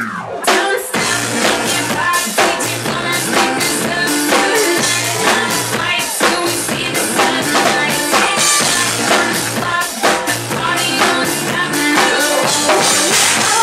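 Live drum kit played over a DJ's dance track: a steady run of kick, snare and cymbal hits over a repeating bass line.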